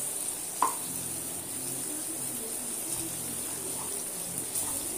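Ivy gourd pieces sizzling steadily in oil as a spatula stirs them in a nonstick kadai, with one knock of the spatula against the pan about half a second in. The gourds are being cooked soft in oil alone, with no water.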